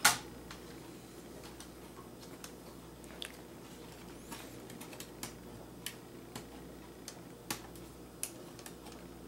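Small clicks and taps of hands and tools working at a laptop's internal metal shielding and parts, with one sharp click at the start and scattered faint ticks after it.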